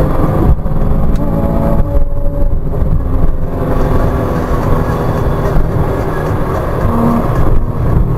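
Porsche Cayman 987.2's 2.9-litre flat-six engine heard from inside the cabin under hard acceleration, running at high revs and shifting up from third to fourth, with road and tyre noise.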